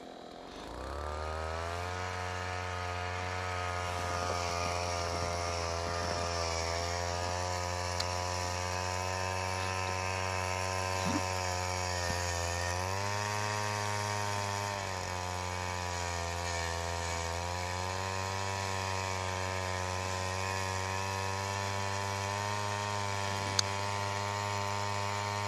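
A small engine running steadily, fading in about a second in, its pitch stepping up slightly partway through.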